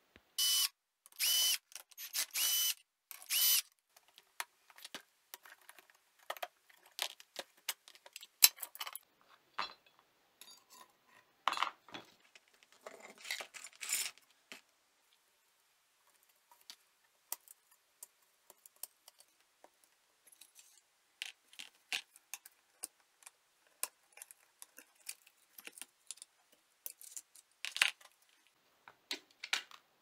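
Four short whirs of a small power screwdriver in the first few seconds, undoing the bolts that hold a washing-machine motor together. Then scattered clicks, clinks and scrapes of the metal housing and rotor being handled as the motor is taken apart.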